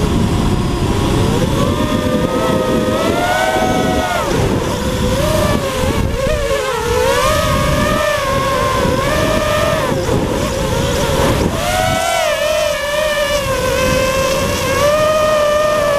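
FPV quadcopter's motors and propellers whining, the pitch rising and falling over and over as the throttle changes, with wind rushing over the onboard camera's microphone.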